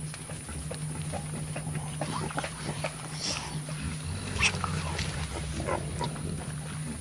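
Mountain gorillas making short, soft calls, with a few sharper squeaks about two and a half and five and a half seconds in, among scattered small rustles.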